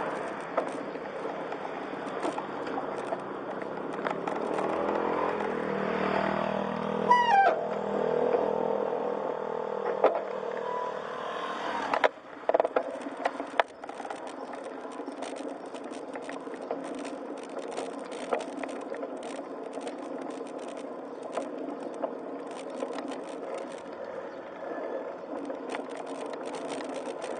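A motor vehicle running on a road. A short falling whistle-like tone comes about seven seconds in, and a few sharp knocks and clatters come about halfway through.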